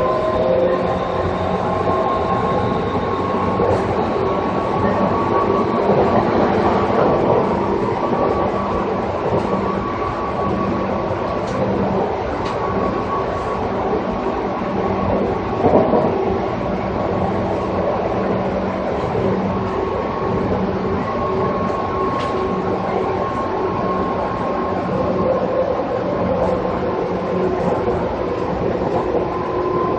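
JR 205 series electric train running at a steady speed, its externally ventilated traction motors giving a steady hum and whine over continuous wheel-on-rail rolling noise. A single louder knock comes about 16 s in.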